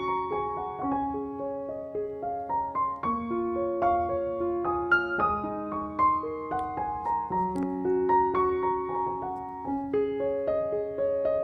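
Background piano music: a melody of held notes.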